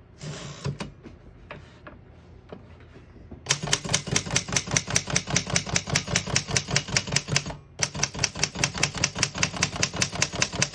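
1915 Corona Folding portable typewriter being typed on. A few soft clicks and a short rustle come first. About three and a half seconds in, a fast, even run of typebars striking the platen starts, at about five keystrokes a second, broken by one short pause.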